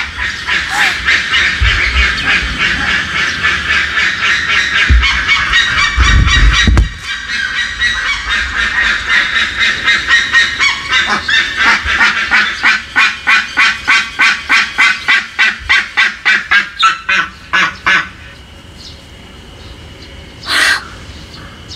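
Steller's sea eagles calling: a long run of fast, repeated yelping notes, about four a second, that breaks off about eighteen seconds in, then one last short call near the end. Some low rumbles on the microphone come in around five and six seconds in.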